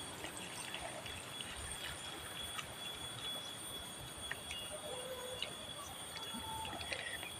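Faint rural ambience: a steady high-pitched insect drone over low background hiss, with a few faint clicks.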